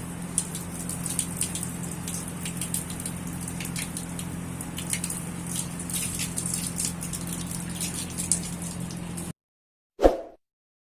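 Water running and spattering with many small drips, over a steady low hum. It cuts off abruptly near the end, followed by a single short chime.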